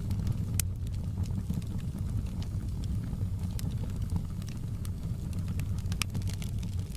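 Wood fire crackling in a fireplace: a steady low rumble of burning with scattered sharp snaps and pops, a louder pop shortly after the start and another near the end.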